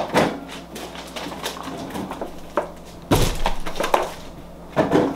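Kitchen handling noises: a few knocks as things are moved and set down on a counter, with a heavier thud about three seconds in.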